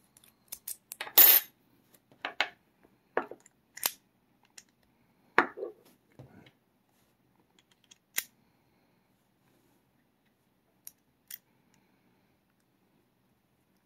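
Sharp metallic clicks and clinks of a padlock's small parts and hand tools being handled during reassembly: about a dozen irregular knocks over the first eight seconds, the loudest a short rattle about a second in, then two faint ticks near the end.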